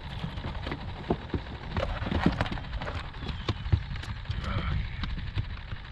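Irregular knocks and thumps on a fishing boat's deck as a just-landed crappie flops on the floor and is grabbed, over a steady low rumble.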